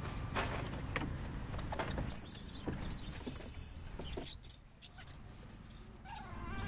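A troop of long-tailed macaques: high, thin squeaks and a few light clicks over a steady low background hum, with a short wavering call near the end.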